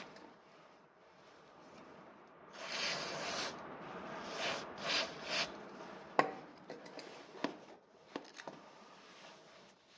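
Hand work on brake caliper parts: several rubbing, scraping strokes, then a few sharp clicks and knocks.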